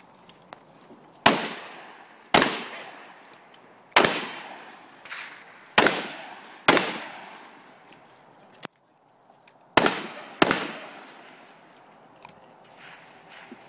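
Seven pistol shots fired at an uneven pace, each sharp crack followed by an echo that dies away over about a second; the last two come close together.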